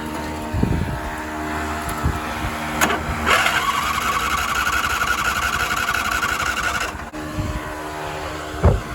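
Small engine of an old Craftsman lawn mower being started on test after repair: a few knocks, then it runs for about four seconds and cuts off suddenly.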